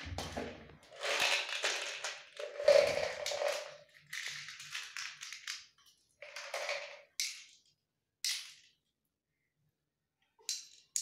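Metal puja vessels and plates being handled, scraped and set down on a tiled floor, in irregular bursts of clatter and scraping, then a few short sharp clinks.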